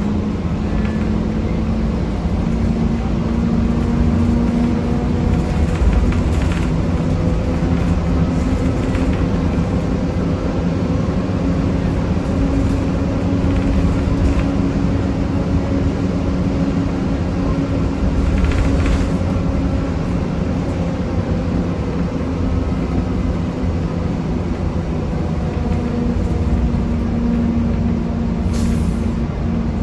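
Transit bus under way, heard from inside: its Cummins ISM diesel runs under a loud grinding noise with steady whining tones that drift slightly in pitch. The owner suspects the transmission, an Allison B400R, as the source.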